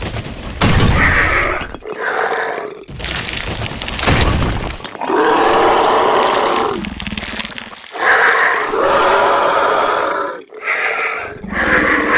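Monster sound effects for a giant worm creature bursting out of the ground: a series of loud roars and growls, each a second or two long, with the rumble and crack of breaking earth.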